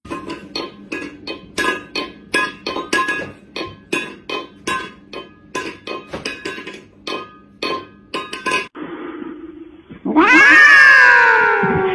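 A cat paws a small metal bowl about on a hard floor, making irregular metallic clanks, two to three a second. About ten seconds in, a cat yowls loudly into a microphone: one long call that rises and then falls in pitch.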